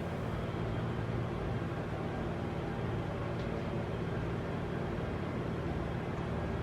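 A household appliance running with a steady low hum.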